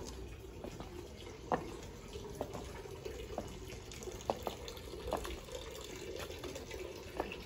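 Footsteps on a brick walkway, sharp short steps at walking pace, about one a second, over a steady low hum.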